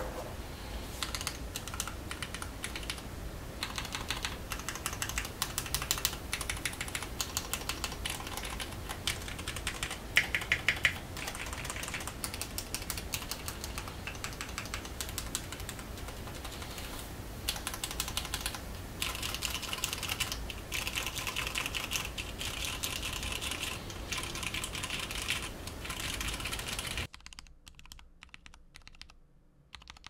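Custom Monokei x TGR Tomo mechanical keyboard with lubed Cherry MX Black Clear Top linear switches on an aluminium plate, being typed on steadily in runs of keystrokes with short pauses. It is heard through a camera's built-in microphone with background hiss, switching near the end to a separate microphone with a much quieter background.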